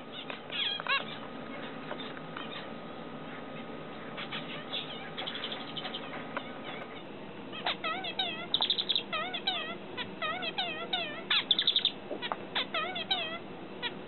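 Zebra finches chirping, then about halfway through a male zebra finch sings its song: the same wavering nasal notes repeated quickly, broken by short buzzy notes.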